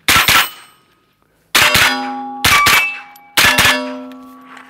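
Rifle shots from an AR-15 fired in quick succession at hanging steel plate targets, the hits followed by the steel ringing at a held pitch that slowly fades between shots.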